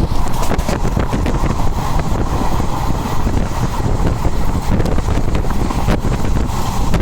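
Steady rumble of a moving train with wind buffeting the microphone, with faint clicks running through it.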